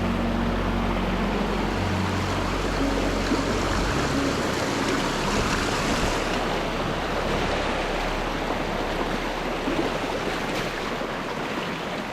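A fast, deep mountain stream rushing over rocks, a steady, even rush of water. There is a low rumble underneath in roughly the first half.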